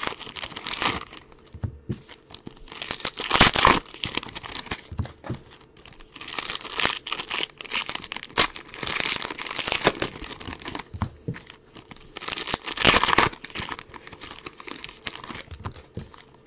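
Trading card pack wrappers crinkling and tearing as packs are ripped open and handled, in irregular bursts with the loudest about three and a half seconds in and again near thirteen seconds.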